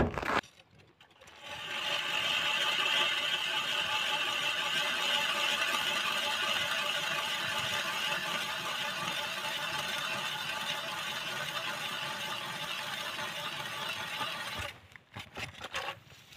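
Powered ice auger boring a hole through lake ice: a steady motor whine that starts about a second and a half in, fades slightly as the hole deepens, and stops near the end, followed by a few short knocks.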